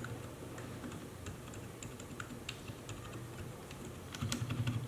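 Typing on a mechanical keyboard fitted with Outemu Silent Honey Peach V1 linear switches, which are quite silent: faint, scattered keystrokes that become quicker and louder about four seconds in.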